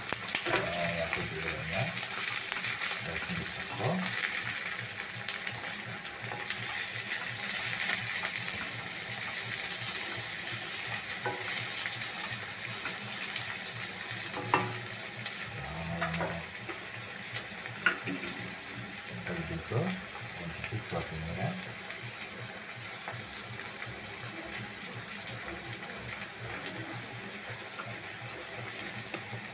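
Sliced onions and green chillies sizzling in hot oil in a pan, with a spatula now and then scraping and clicking against the pan as they are stirred. The sizzle is louder for the first several seconds, then settles to a steadier, lower hiss.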